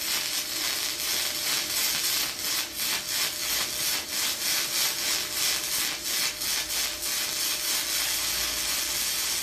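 Gasless flux-core MIG arc from a Flameweld MTA1650 multiprocess welder, running a bead on thin mild-steel exhaust pipe: a steady frying crackle full of rapid, irregular pops, striking up suddenly at the start. The machine has just been turned down for the thin pipe after running a bit hot.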